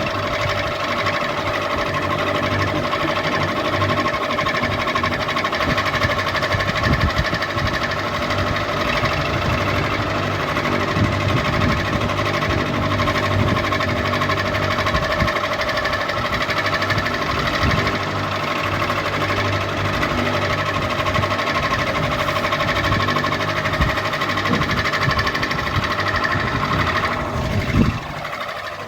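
Ceiling fan running steadily, a mechanical hum with a rattling, knocking undertone. Near the end a tone falls in pitch and a brief loud knock sounds.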